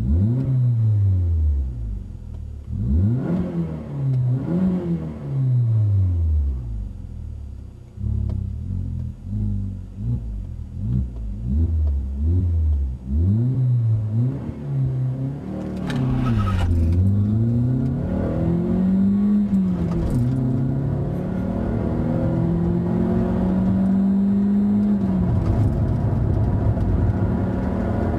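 VW Golf Mk4 1.6 FSI four-cylinder petrol engine with a Bastuck aftermarket exhaust, heard from inside the cabin. It is revved in a quick series of short blips for about the first half. Then come longer pulls, the revs climbing and dropping back several times over steady road noise.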